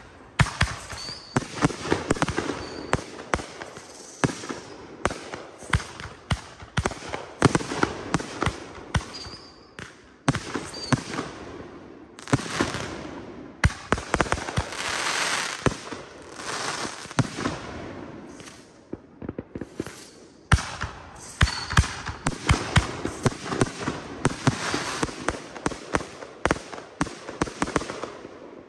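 Consumer (1.4G) aerial fireworks firing in rapid succession: many sharp bangs of launches and bursts, with crackling, fizzing hiss between them.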